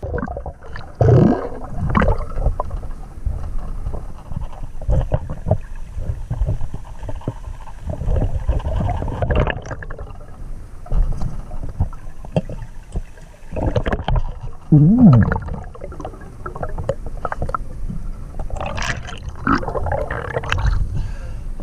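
Muffled underwater gurgling and bubbling, with irregular knocks and rustles of a diver's hands moving over the riverbed, heard through a camera held under water.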